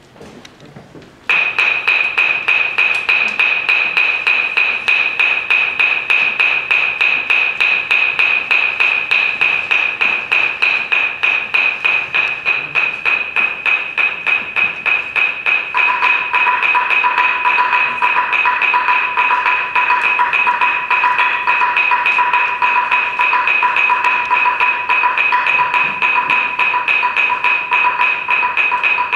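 Hand-held pieces of wood struck with wooden sticks in a rapid, even pulse with a high, bright pitch. A second, lower-pitched piece of wood joins in the same pulse about 16 seconds in.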